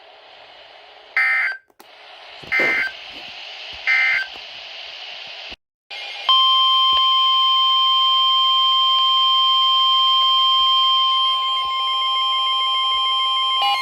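Emergency Alert System weather-radio signalling: three short, shrill bursts of warbling digital data tones about a second and a half apart, a brief dropout, then a steady single-pitch warning alarm tone that starts about six seconds in and holds. Near the end, a new run of chattering data tones begins over the alarm tone.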